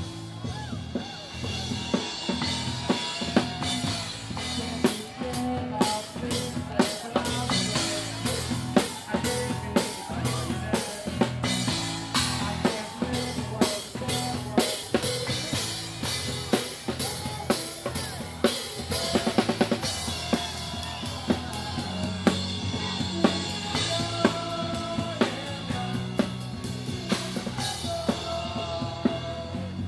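Live drum kit played hard, bass drum and snare with rimshots, over a steady low bass line; a fast drum roll comes about two-thirds of the way through.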